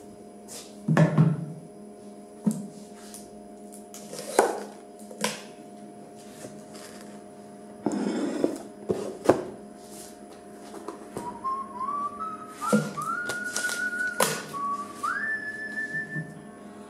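A person whistling a tune, held notes stepping upward, starting about two-thirds of the way in. Before and under it, scattered knocks and clatter of things being handled over a steady hum.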